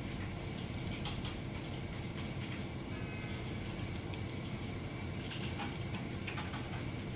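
Steady low room hum and hiss with a few faint scattered clicks.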